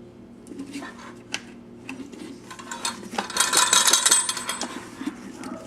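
The knocked-out dishwasher-inlet plug rattling loose inside an InSinkErator Badger garbage disposal's grinding chamber as it is chased down to be removed. A few light clinks, then a dense jingling rattle for about a second and a half from around three seconds in.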